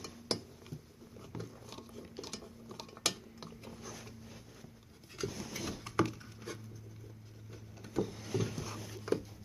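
Scattered sharp clicks and light knocks of bolts and a metal console plate being handled and fitted by hand, with rustling between them over a faint steady low hum.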